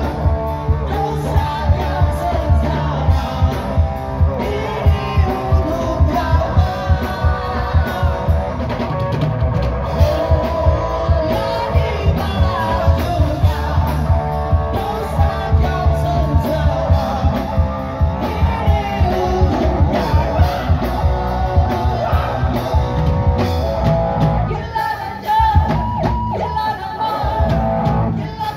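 A live rock band plays with a steady drum beat: a man and a woman sing over electric guitar, bass guitar and drum kit. The drums and bass drop out briefly near the end.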